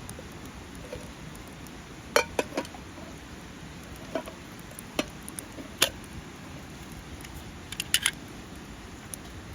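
Metal cookware and utensils clinking: a dozen or so sharp clicks and knocks in small clusters, some with a short ring, over a steady background hiss.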